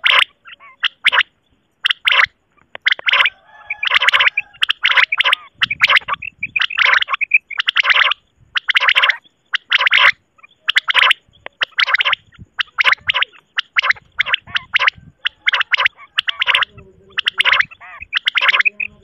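Common quail (batair) calling over and over: short, sharp call notes in quick runs of two or three with brief gaps between runs, the kind of call recording played to lure quail when hunting.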